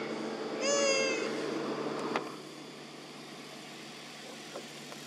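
A long-tailed macaque gives one short, high-pitched, meow-like call about a second in, falling slightly in pitch. Under it a steady hum stops with a click about two seconds in.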